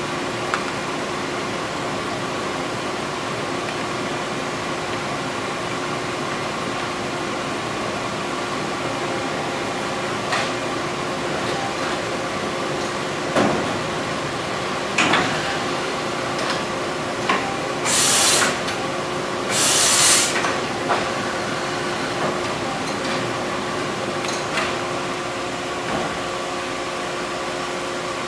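Cincinnati CNC machine running with a steady mechanical hum and a few held tones. Scattered clicks and knocks come through it, and two hissing bursts of about a second each come roughly two seconds apart, about two-thirds of the way through.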